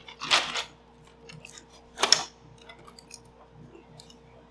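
A person sipping bourbon: two short slurps, near the start and about two seconds in, over a faint steady hum.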